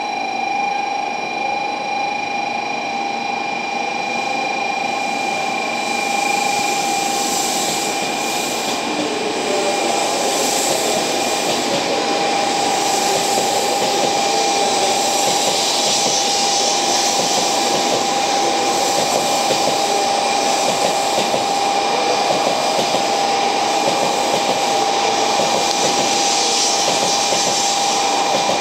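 Sixteen-car N700S Shinkansen train pulling slowly out of the station: a steady high electric whine over rolling and wheel noise that grows louder as the cars pass.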